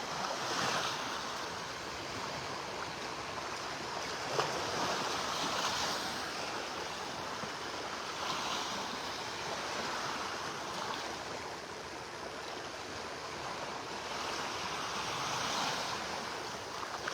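Small Gulf of Mexico waves breaking and washing up the beach, a steady rush of surf that swells every few seconds.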